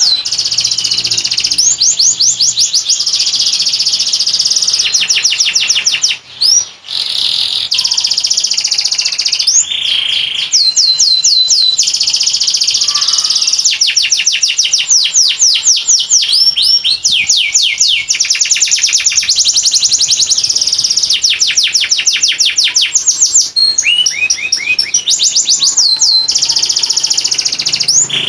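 Domestic canary singing one long, nearly unbroken song of fast trills: runs of rapid notes each sliding down in pitch, changing from one trill to the next, with a short break about six seconds in.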